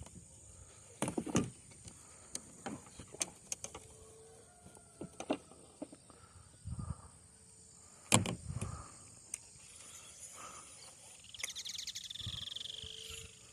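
Scattered knocks and clicks of fishing gear being handled while a traíra is landed with a net, over a steady high drone of crickets. The loudest knock is about eight seconds in, and near the end comes about two seconds of rattling with a falling whine.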